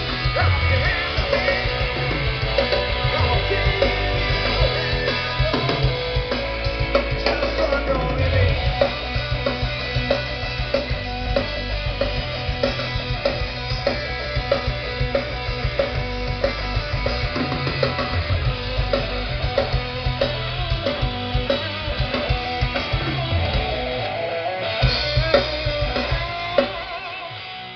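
Rock band's soundcheck played through a large outdoor stage PA: electric guitar, drums and bass. Near the end the bass and drums drop away, leaving mostly guitar, and the level falls off.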